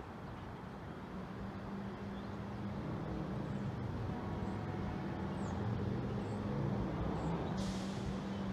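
Diesel engine of a distant Amtrak Siemens Charger locomotive droning steadily and slowly growing louder as the train pulls out of the station. A short hiss comes near the end.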